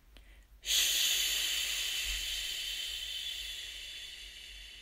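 A woman's long, drawn-out "sssshh" made with her voice, imitating a train's hiss. It starts about a second in and slowly fades.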